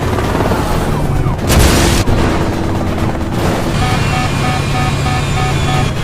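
Car chase sound effects: dense vehicle noise with a loud hit about one and a half seconds in, then a rapidly repeating beeping tone from about four seconds in.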